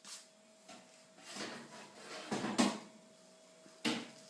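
Oven and metal baking tray being handled: a short scrape, then a cluster of clunks and clatters a little past halfway, and a sharp knock near the end.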